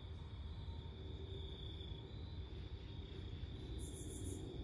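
Crickets trilling steadily at one high pitch over a low steady rumble, with a short, higher pulsing buzz near the end.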